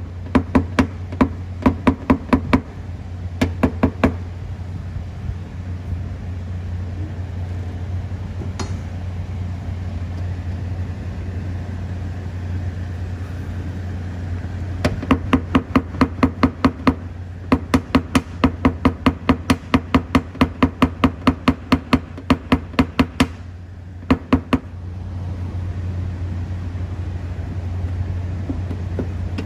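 Rapid light taps of a paintless-dent-repair hammer and knockdown on car body metal, tapping down the high spots along a body line dent, about five taps a second. The taps come in runs, a short burst at the start and a longer run in the middle, over a steady low hum.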